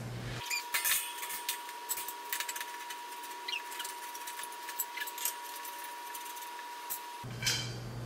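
Light metallic clicks and clinks of chrome wire shelving posts, clips and shelves being handled and fitted together, scattered irregularly. A faint steady tone sounds under them for most of the time.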